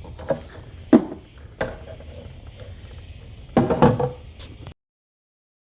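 Hard plastic parts of an EyeVac touchless vacuum being handled: a few separate sharp knocks, then a quick cluster of louder clatters about three and a half seconds in. The sound cuts off abruptly before the end.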